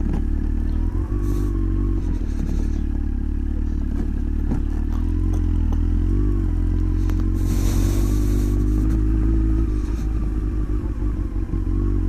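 Motorcycle engine running steadily while riding, with a slight rise and fall in pitch midway and a brief hiss about seven seconds in.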